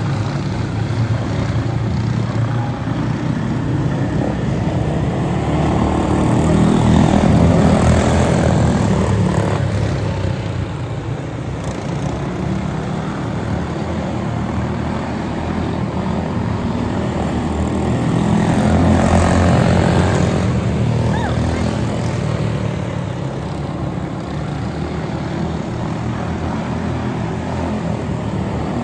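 Propeller aircraft engine droning, swelling louder and fading away twice, about twelve seconds apart, as it passes by.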